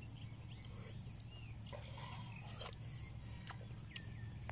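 Watermelon being bitten and chewed: scattered short wet crunches and slurps over a steady low hum.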